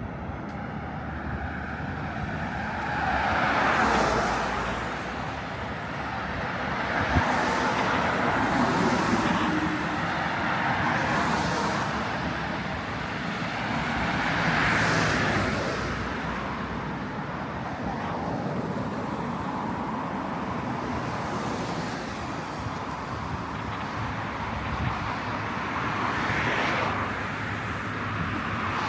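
Road traffic: several cars pass one after another, each swelling in tyre and engine noise and then fading, over a steady background hum of the street.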